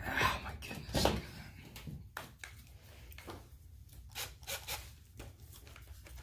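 Hand-handling noise of fitting a screw into a metal return-air grille: scraping and rubbing as the screw is held against the grille and wall, two louder scrapes near the start and about a second in, then lighter clicks and rubs as a cordless drill is picked up and handled.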